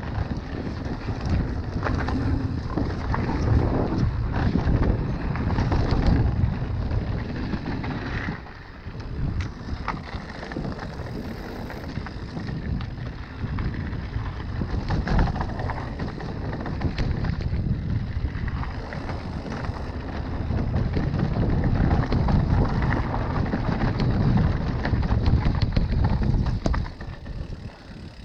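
Mountain bike riding fast down a dirt forest trail: wind buffeting the microphone over tyres rolling on the dirt, with many small clicks and rattles from the bike. The noise drops near the end.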